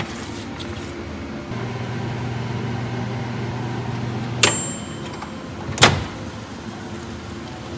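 Iris Ohyama dial-type microwave oven: a low hum starts about a second and a half in and runs steadily for about three seconds. It stops with a sharp click and a short high ring, and a second sharp clack follows about a second and a half later.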